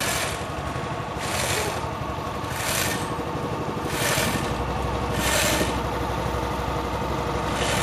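Small engine of a pontoon river ferry running steadily under way, with a loud hiss that swells and fades about every second and a half.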